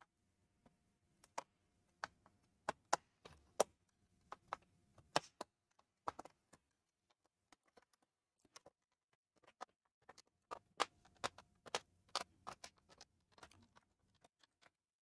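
Plastic snap clips of an HP 15-bs laptop's bottom case clicking loose as a prying tool works along the seam: two irregular runs of sharp, faint clicks.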